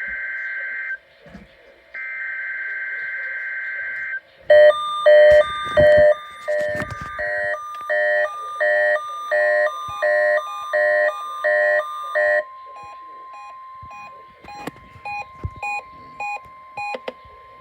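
Weather radio emergency alert data burst: two bursts of warbling digital tones, each about two seconds long with a second's gap, marking the start of the Required Weekly Test. About four seconds in, a weather alert receiver's alarm sets off, beeping about twice a second for roughly eight seconds, then continues more quietly over a faint steady tone.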